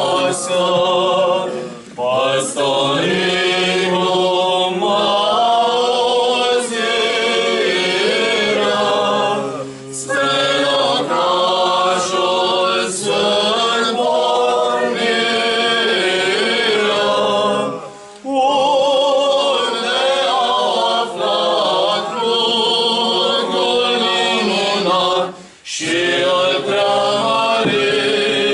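A choir singing a cappella: several voices in harmony in long sustained phrases, with brief pauses for breath about every eight seconds.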